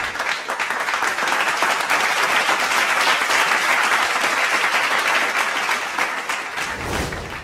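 Applause from many people clapping, building up at first and then fading out near the end.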